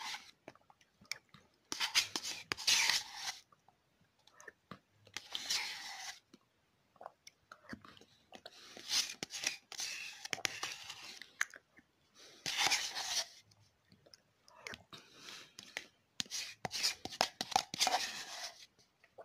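A person eating yogurt fast from a cup: about seven separate noisy bursts of slurping and spoon scraping, each a second or two long, with small spoon clicks between them.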